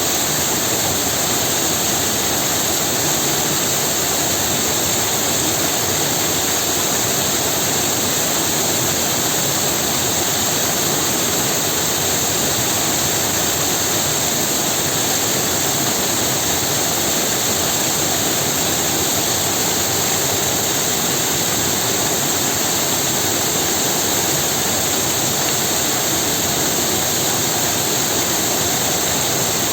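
Waterfall: water falling and splashing in a constant, unbroken rush with no change in level.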